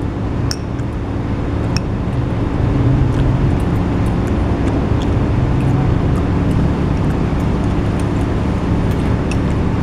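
Steady traffic noise from a busy multi-lane highway, with a few faint clicks.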